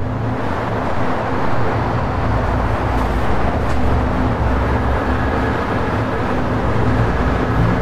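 Steady low rumble and hiss of city traffic ambience.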